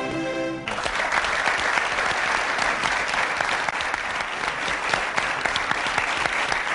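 A boys' choir's final held chord, cut off suddenly less than a second in, followed by a studio audience applauding steadily.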